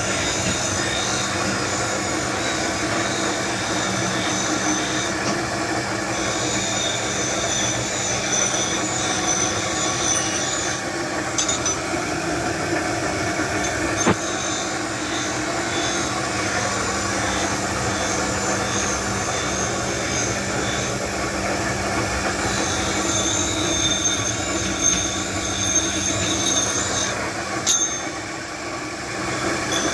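Steady workshop machinery noise with a constant low hum and a high squeal that comes and goes. A sharp knock comes about halfway through and another near the end.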